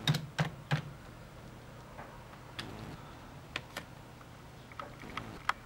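Keys tapped on a computer keyboard: three quick keystrokes at the start, then single clicks spaced out over the next few seconds.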